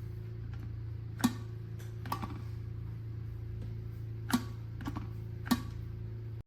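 A steady low electrical hum with five short, sharp clicks or ticks scattered through it, the loudest about a second in and near the end.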